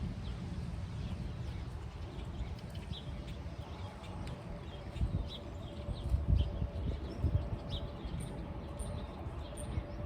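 Birds chirping in short, scattered calls over a steady low rumble, with a few louder soft thumps about five to seven seconds in.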